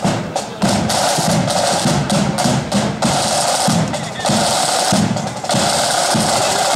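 A marching flute band's side drums and bass drum beating a steady, rhythmic march pattern, with snare rolls.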